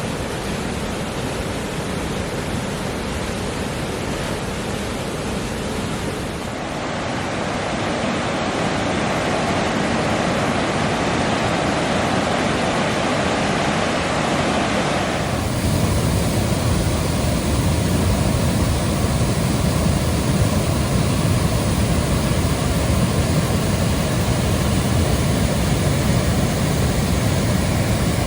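Rushing water of a fast mountain creek, a steady rush with no pauses. It gets louder about seven seconds in, then about fifteen seconds in turns abruptly deeper and heavier, as if heard from a different spot along the creek.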